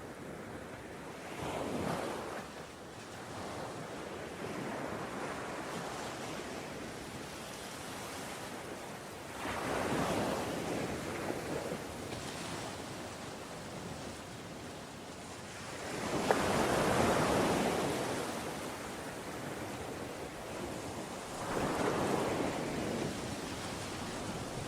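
Ocean waves breaking and washing in, four surges of surf swelling and fading over a steady rush of water, the loudest about two-thirds of the way through.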